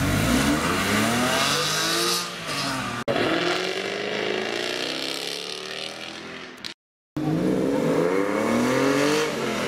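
Three sports cars accelerating away one after another, each engine note rising as it revs up: a Porsche 911's flat-six, then a Jaguar F-Type coupé, then a 996 Porsche 911 Carrera's flat-six. The middle car fades away before a brief dropout about two-thirds through.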